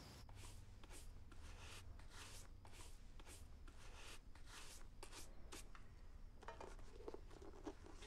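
Faint rubbing strokes of a pistol being handled and wiped, about two a second, followed near the end by a few light clicks from working the pistol.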